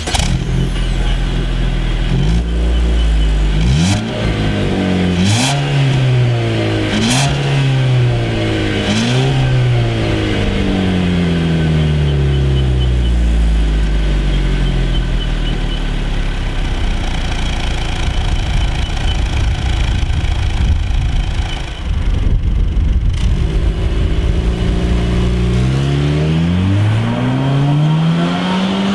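2014 Jeep Cherokee Sport's 2.4-litre Tigershark four-cylinder heard at the exhaust: idling, then revved in several quick blips that rise and fall, the revs sinking back to a steady idle. In the last few seconds the engine note climbs steadily as the Jeep accelerates away.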